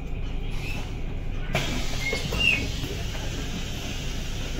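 Bus running along the guided busway: a steady low engine and road rumble, with a few short high squeaks about two seconds in.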